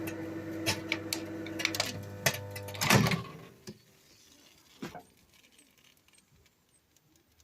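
Microwave oven running with a steady hum and scattered clicks, then a louder clunk about three seconds in as the hum stops. After that it is nearly quiet, with two faint clicks.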